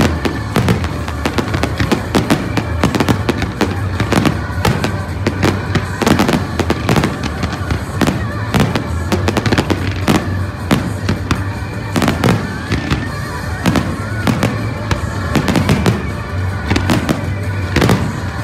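Fireworks going off in rapid succession, with many sharp bangs and crackles, over loud music with a steady bass.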